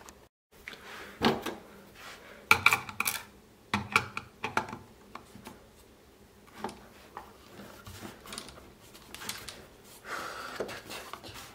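Screwdriver and hands working at a stubborn screw inside the opened plastic housing of a Dali Katch G2 speaker: irregular clicks, knocks and scraping.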